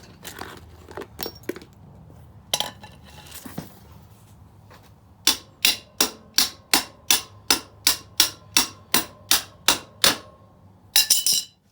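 Hand tool tapping metal: about fourteen sharp, evenly spaced strikes at roughly three a second, after a few scattered clicks, with a brief loud clatter near the end.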